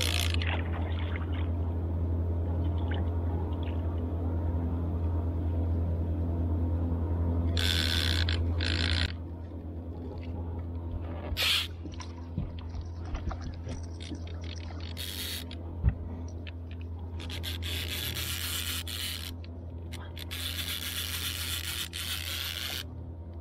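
A steady low motor hum that drops in level about nine seconds in, then a fishing reel being cranked and clicking in repeated bursts as a hooked musky is fought on the rod.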